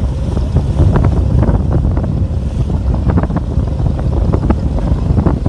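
Wind buffeting the microphone aboard a moving boat, a steady low rumble with irregular gusty rushes.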